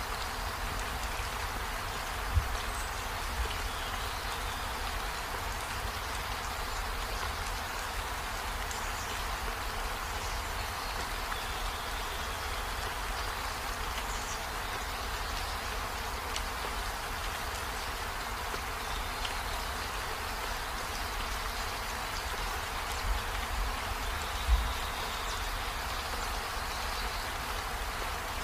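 Steady hissing noise, with a few dull low thumps about two seconds in and again near the end.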